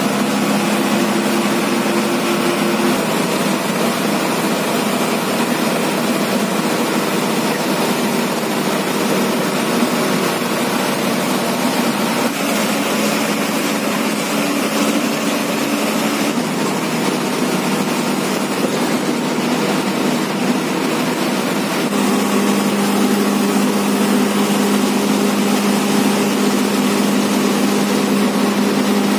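Diesel engine of an MSRTC bus running under way, heard from inside the cab over steady road noise, its drone shifting pitch a few times and growing louder in the last quarter.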